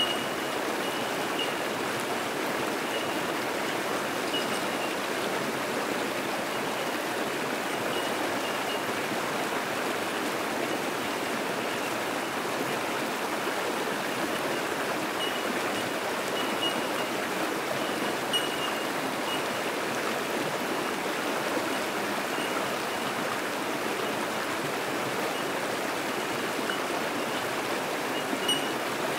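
Fast-flowing bush creek rushing over rocks in small rapids, a steady rush of water. Bell miners (bellbirds) give short, high tinking notes now and then, in small clusters at the start, in the middle and near the end.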